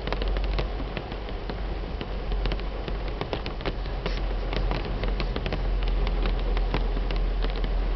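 Heavy rain pattering on a car's roof and windshield, heard from inside the car: a dense run of drop ticks over a steady hiss and low rumble.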